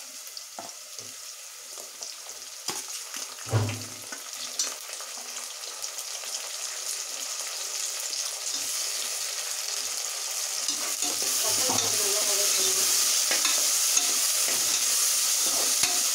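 Chopped tomatoes and sliced onions sizzling in hot oil in an aluminium pressure cooker, stirred with a slotted steel ladle that scrapes and clicks against the pan. The sizzle grows steadily louder and is loudest in the second half, with a sharper knock about three and a half seconds in.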